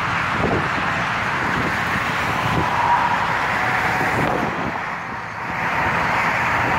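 Lamborghini Gallardo's V10 creeping by at low revs, a low burble under a steady hiss of road traffic, with a brief lull about five seconds in.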